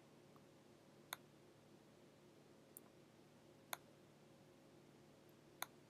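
Near silence: faint room tone with a steady low hum and four short, faint clicks spread through it, made while handwriting a word onto the screen with a computer pen input.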